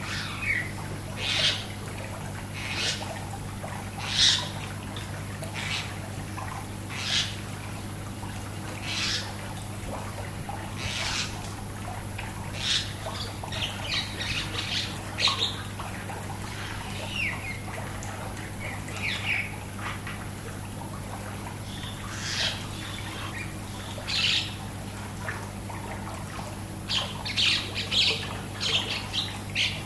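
Songbirds chirping in short, high calls every second or two, with a quick flurry of chirps near the end, over a steady low hum.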